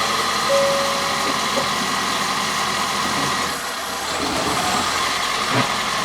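A car moving slowly in reverse, its reverse warning sounding as repeated beeps for the first second and a half over a steady hiss and hum.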